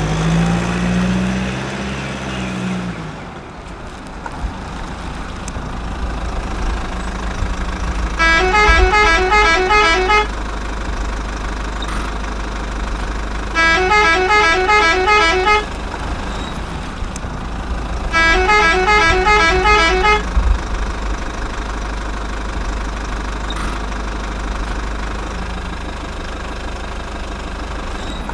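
A telolet truck horn plays its multi-note melody three times, each burst a quick run of notes about two seconds long, over a steady low engine rumble.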